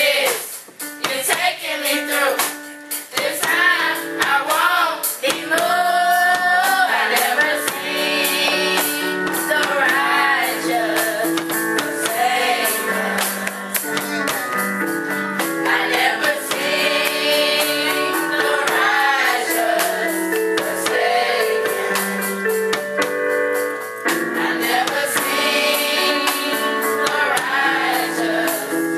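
Youth choir of teens and children singing a gospel song together over instrumental accompaniment, with a steady percussive beat.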